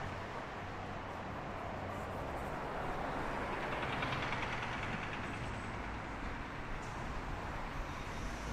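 Steady city street traffic noise, with one vehicle passing and swelling louder about halfway through.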